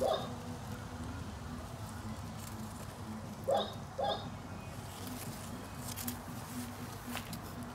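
An animal calling twice, two short calls about half a second apart a little over three seconds in, over steady outdoor background.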